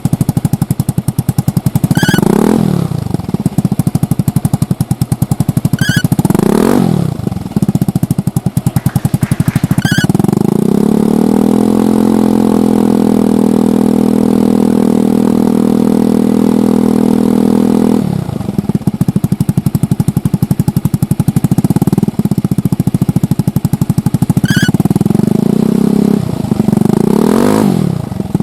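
Yamaha Majesty 125 scooter's single-cylinder four-stroke engine through a Yoshimura Cyclone aftermarket muffler, with a deep exhaust note. It idles and is blipped in short revs about two, six and ten seconds in, then held at high revs for about seven seconds before dropping back to idle, with a few more blips near the end.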